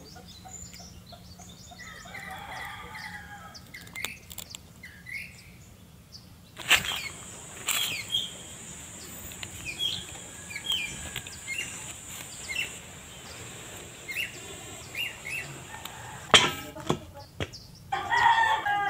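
Birds chirping and a chicken calling, with a few sharp clicks standing out, the loudest near the end.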